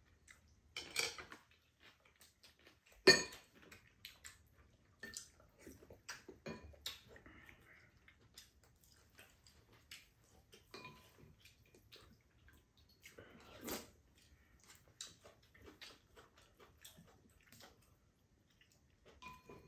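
Chopsticks and metal spoons clicking and scraping against ceramic bowls and a pan during a meal, in scattered short knocks, with one sharp knock about three seconds in.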